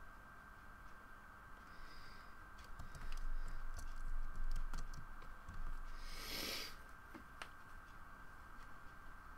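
Scattered light clicks and taps of a computer keyboard and a pen on a drawing tablet, with a brief hiss about six seconds in, over a faint steady high whine.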